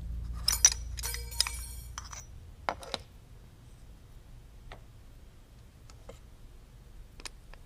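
Metal parts being handled at a milling-machine vise: a cluster of sharp clinks with a brief metallic jingle in the first two seconds, then a few single light clicks spaced a second or more apart.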